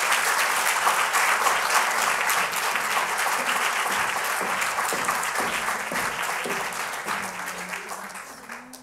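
Audience applauding, the clapping thinning and dying away over the last two seconds.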